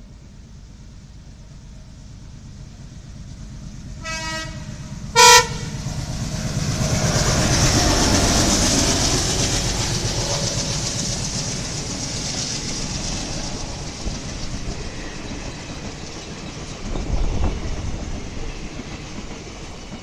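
Dual-tone horn of a WDM-3D diesel locomotive: two short blasts about a second apart, the second higher and louder. The locomotive and its passenger coaches then pass close by, loudest a few seconds later and slowly fading, with wheels clattering on the rail joints.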